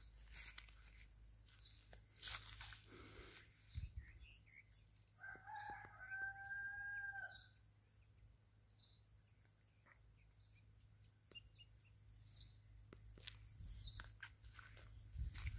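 A rooster crows once, faintly: a short opening note, then a long held ending lasting about two seconds, around five seconds in. Scattered rustling and a steady high buzz run under it.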